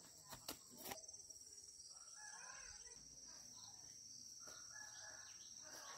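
Faint rooster crowing, over a steady high-pitched insect drone.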